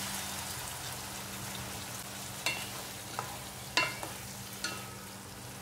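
Tomato and carrot sauce sizzling in a nonstick wok, a little water just poured in, with a wooden spatula stirring and knocking against the pan a few times in the second half.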